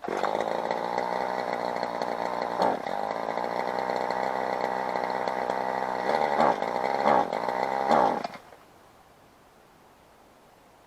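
Kawasaki KTF27A string trimmer's two-stroke engine catches and runs, revved up in several quick throttle blips, then dies suddenly about eight seconds in; it was out of gas.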